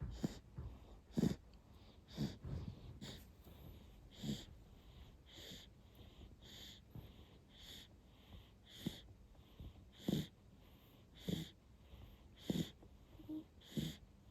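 Young baby snoring in sleep: about a dozen short, wheezy, snuffly breaths, evenly spaced about once a second.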